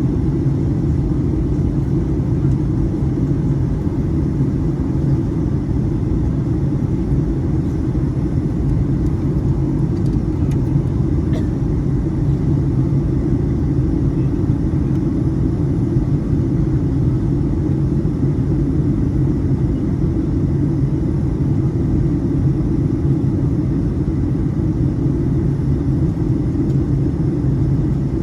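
Steady low drone inside a jet airliner's cabin: engine and airflow noise during the descent, with an even hum and no changes.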